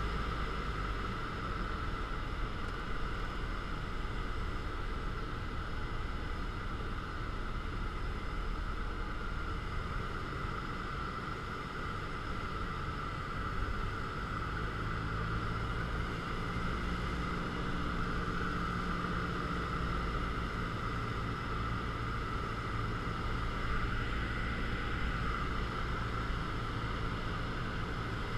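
Single-engine piston airplane's engine and propeller droning steadily, heard from inside the cockpit on approach to landing.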